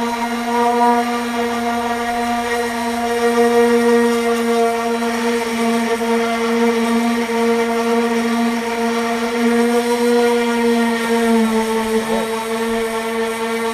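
A power sander running steadily with a constant high whine while sanding body filler on a vehicle panel, its pitch dipping briefly near the end as it is loaded.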